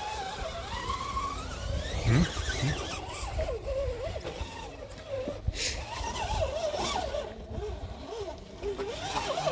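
Electric motor and gear drive of a 3D-printed RC rock crawler whining, its pitch rising and falling with the throttle as it crawls over rocks.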